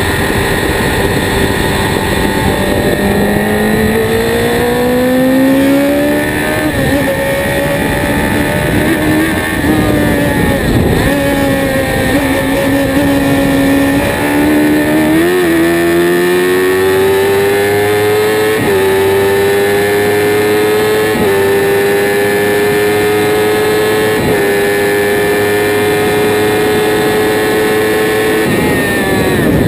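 Onboard sound of a Spire GT3 race car's engine running at a steady part throttle. Its pitch climbs slowly, with a few brief hitches at gear changes.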